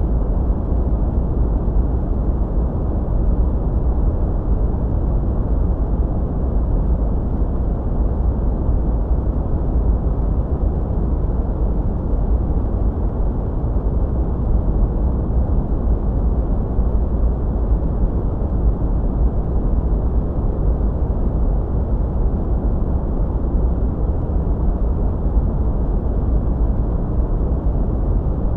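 Steady sleep noise with no changes, deep and muffled, with most of its energy in the bass and little above a couple of kilohertz, closer to brown noise than to bright white noise.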